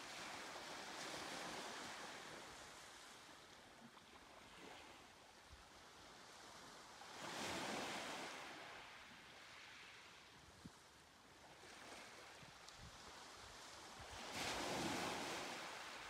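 Soft sea waves washing onto a beach, with two louder waves breaking and draining back, one about halfway through and one near the end.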